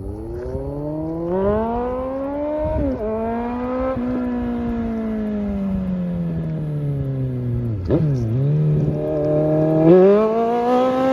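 Suzuki Bandit 1250 inline-four motorcycle engine under hard acceleration: its pitch climbs, drops sharply at a gear change about three seconds in, then falls slowly as the throttle eases. The pitch dips again about eight seconds in and climbs once more near the end.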